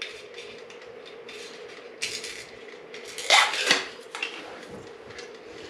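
Metal lid being unscrewed from a glass jar of almond butter and set down on a granite countertop, with a spoon clinking; the loudest clatter comes a little past halfway. A faint steady hum runs underneath.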